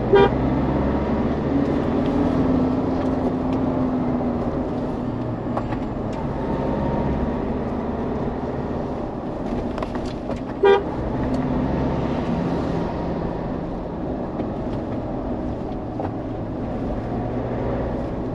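Steady engine and road noise of a Mahindra Thar driving on a highway, with two short, loud vehicle-horn toots: one right at the start and one about ten and a half seconds in.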